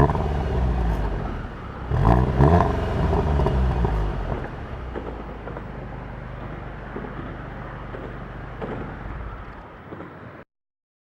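Seat León Cupra 290's 2.0 TSI turbocharged four-cylinder engine and exhaust, blipped twice near the start, the pitch rising and falling each time. It then settles to a quieter, steady running that fades and cuts off abruptly about ten seconds in.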